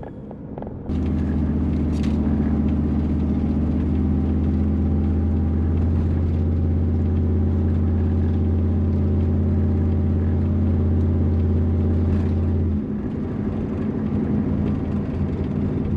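Car engine and road drone heard from inside the cabin while driving: a steady low hum that comes in suddenly about a second in. Its deepest tone falls away and the hum eases somewhat near the end.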